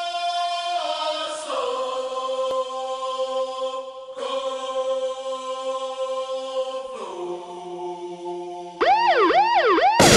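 Intro music of sustained, choir-like synthesized chords, each held for a few seconds and changing about four times. Near the end a fast wailing siren-like sweep comes in, rising and falling about two and a half times a second.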